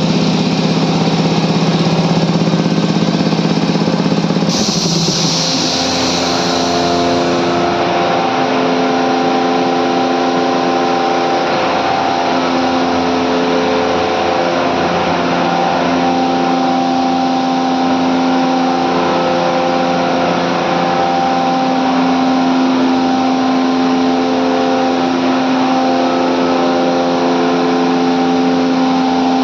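Medical air compressors running with a loud, steady mechanical hum and several steady tones. About four seconds in the running note changes and a burst of air hiss sounds for two or three seconds.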